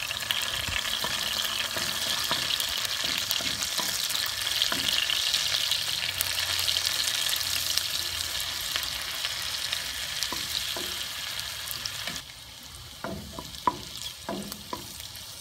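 Minced garlic and ginger sizzling in hot rendered pork-belly fat in a wok, stirred with a wooden spoon. About twelve seconds in the sizzle drops suddenly to a quieter frying, with a few sharp knocks of the spoon against the pan.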